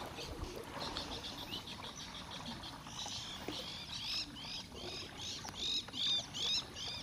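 A bird singing: a quick run of short, high notes, then a string of repeated arching chirps, about three a second, that grow louder near the end.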